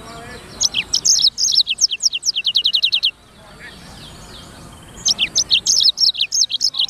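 Black-throated canary (blackthroat) singing: two bursts of fast, high twittering song, each about two and a half seconds long, ending in a quick run of repeated downward-sliding notes. The second burst starts about five seconds in.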